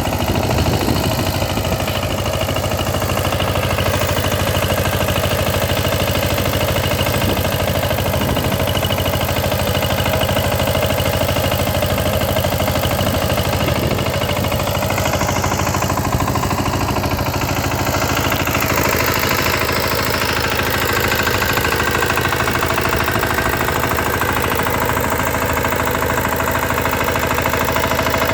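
An engine running steadily with an even hum, its tone shifting about nineteen seconds in.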